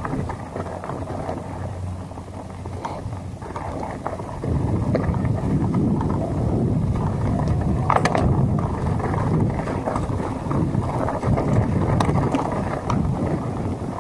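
Mountain bike rolling fast down a dirt and gravel trail: tyre rumble and rattling of the bike over bumps, with wind buffeting the camera microphone. The rumble gets louder about four and a half seconds in, with scattered knocks from roots and stones, the sharpest about eight seconds in.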